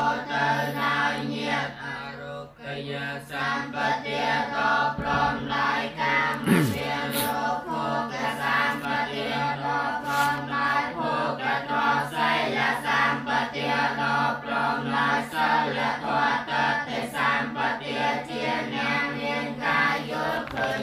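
A group of voices chanting a Buddhist Pali text in unison, held on a steady recitation pitch with regular syllable beats.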